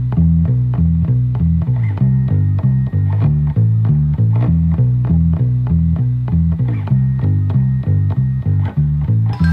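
Background music led by a bass line: quick plucked low notes in a repeating pattern with a steady pulse.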